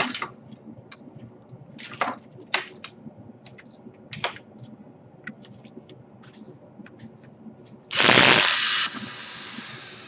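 Scattered light clicks and taps of a screwdriver and hands on the plastic bottom case of a Dell Latitude E5410 laptop as its screws are undone. About eight seconds in, a loud rushing noise lasts about a second, then eases to a fainter steady noise.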